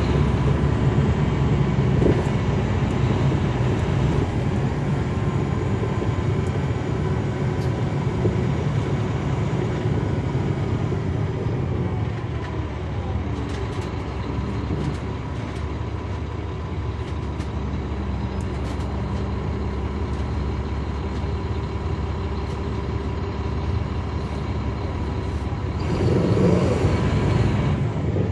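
Caterpillar C13 ACERT diesel engine and ZF Ecomat automatic transmission of a 2009 NABI 40-SFW transit bus, heard from inside at the back while the bus drives: a steady low engine rumble with a mid-pitched whine over it. It eases off about halfway through and pulls louder again near the end.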